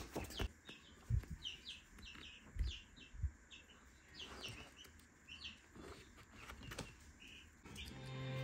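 Baby chicks cheeping continuously in short, high peeps, many each second, with a few soft low thumps in the first few seconds. Background music fades in near the end.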